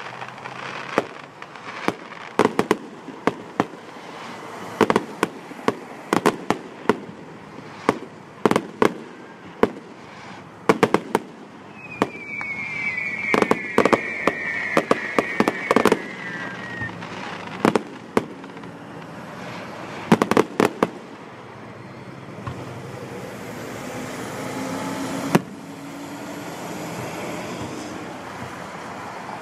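Fireworks display: aerial shells bursting with sharp bangs, single and in quick clusters, all through. A high whistle, falling slightly in pitch, lasts a few seconds about halfway through.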